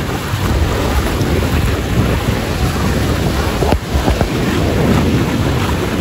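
Waves breaking and washing through the shallows of a rough sea, with wind buffeting the microphone in a steady low rumble.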